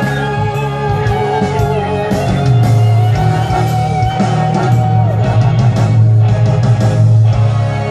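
Pop ballad's instrumental ending played through stage speakers, with a long held note that falls away a little past halfway.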